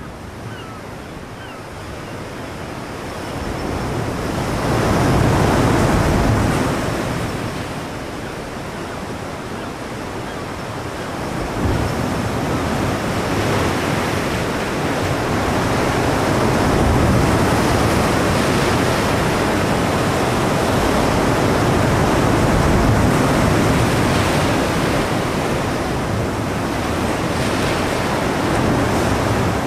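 Heavy sea surf breaking against rocks: a loud, rushing wash of water that swells about five seconds in, eases off, then builds again and stays loud through the second half.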